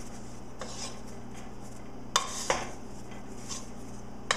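A wooden spoon stirring marshmallows in a pot, knocking against the pot several times, over a steady low hum.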